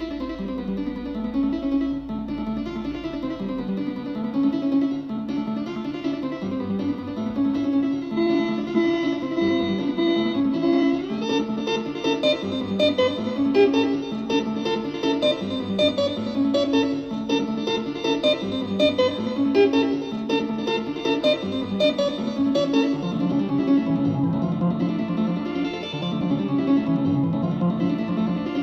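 Instrumental music led by a plucked guitar, playing a steady run of short notes.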